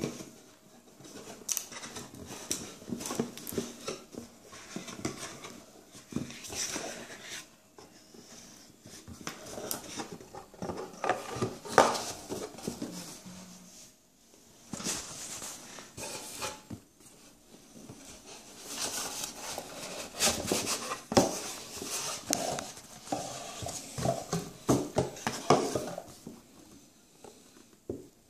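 Handling noise from a rigid black watch box being opened and moved about on a wooden table: the lid and sleeve rubbing and scraping, with sharp clicks and knocks in irregular bursts and a few short pauses.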